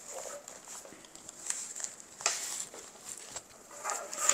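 Rustling and scraping of the elastic fabric pouch on a Blue Force Gear Ten-Speed chest rig as a wide rangefinder is pushed into it, the elastic being stretched over it. Louder scuffs come about two seconds in and near the end.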